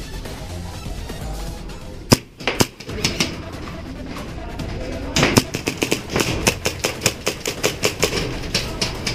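Background music in the first seconds, then airsoft guns firing: two sharp shots about two seconds in, and from about five seconds a fast run of snapping shots, several a second.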